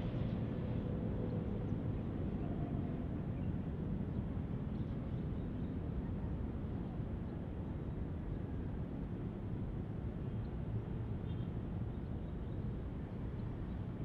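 Distant jet airliner landing: steady low engine noise that eases slowly as it touches down and rolls out.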